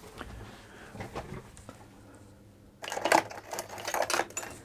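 Hand-tool handling on a workbench: a few faint clicks, then about three seconds in a second and a half of clattering and rustling.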